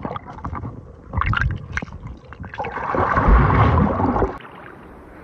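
Water gurgling and sloshing over a phone's microphone dipped underwater, with scattered clicks. It swells to its loudest about three to four seconds in, then drops away suddenly.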